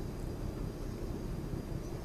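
Steady low rumble of outdoor background noise with no distinct events, and a faint high steady whine above it.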